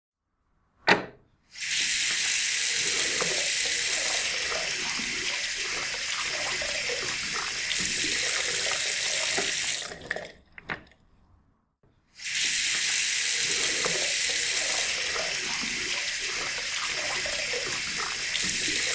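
Water running from a tap into a sink, a steady rushing stream. It starts just after a sharp click, stops about ten seconds in with a few last drips, and starts again about two seconds later.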